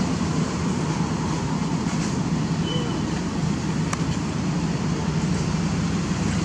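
Steady low rumbling background noise, with one short click about four seconds in.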